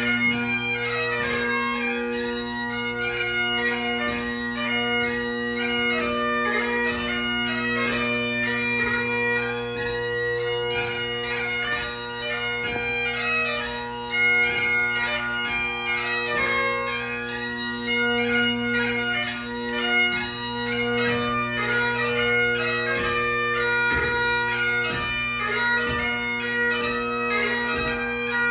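Solo Great Highland bagpipe playing: steady bass and tenor drones sound under the chanter's continuous melody, full of quick grace-note ornaments.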